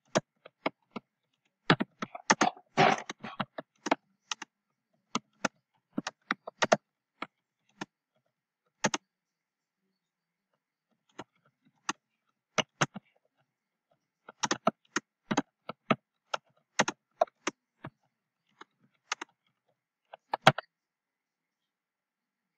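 Typing on a computer keyboard: single keystrokes and quick runs of keys, with pauses between them. One louder click about twenty seconds in, as the typed message is sent.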